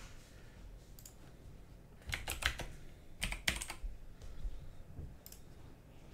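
Typing on a computer keyboard: two short bursts of keystrokes about two and three and a half seconds in, with single clicks near one second and near five seconds.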